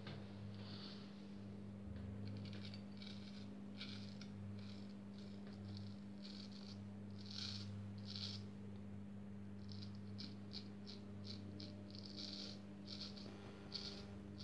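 Freshly honed straight razor cutting through lathered stubble in short strokes, each a quick faint scrape, the edge cutting cleanly. A steady low hum runs underneath.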